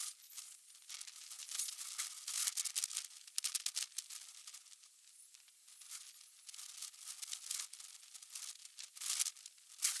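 Outdoor ambient sound played back at 36 times speed: an irregular crackling, tearing hiss that swells and fades.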